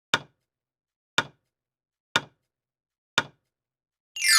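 Countdown-timer sound effect: a sharp tick once a second, four times. Near the end a bright ding sweeps down into a ringing chime, marking that time is up.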